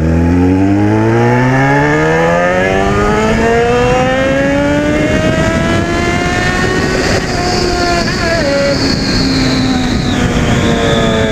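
Yamaha XJ6's inline-four engine with an aftermarket 4-into-1 exhaust under hard acceleration, the engine note rising steadily in one long pull for about seven seconds, then levelling off and easing slightly near the end. Wind rushes steadily over the helmet microphone.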